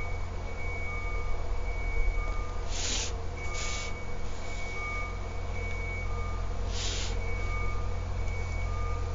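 A plastic set square is slid across the drawing paper in three short scrapes, about 3 s, 3.5 s and 7 s in. Under it runs a steady low hum, with faint beeps repeating about once a second.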